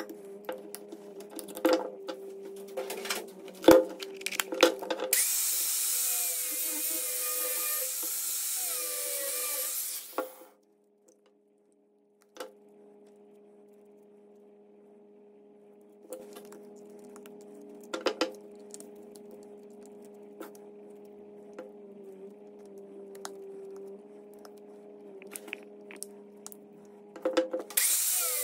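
Hand tools and small parts clicking and clattering on a wooden workbench while a gloved worker takes apart an electrical device, over a steady low hum. A loud hiss comes in about five seconds in and lasts about five seconds, and the sound drops out briefly after it.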